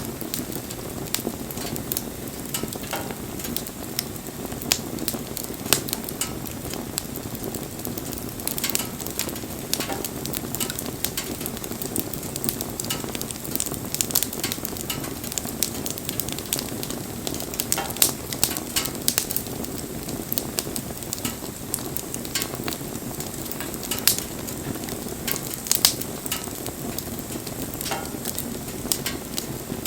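Wood bonfire burning: a steady rush of flame with frequent sharp crackles and pops from the burning wood.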